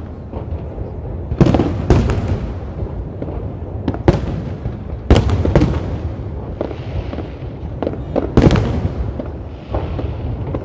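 Aerial firework shells bursting in a display: a series of sharp bangs, several a second or two apart, over a continuous low rumble.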